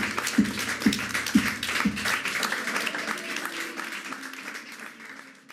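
Audience applause and clapping over the last drum strokes of a small acoustic band, about two strokes a second that stop about two seconds in; the whole sound fades out.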